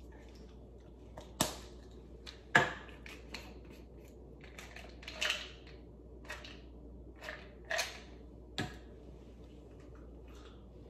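Small plastic bottles and their caps being handled and opened: irregular sharp clicks and knocks with a few short rustles, the loudest knock about two and a half seconds in.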